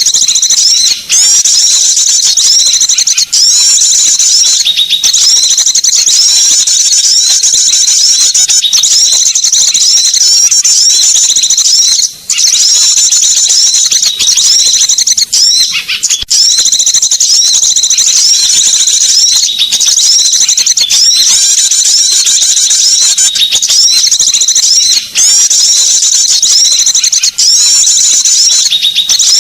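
Bird-lure recording of small songbirds calling: a dense run of high-pitched chirping calls, packed closely and overlapping, broken only by a few short dips.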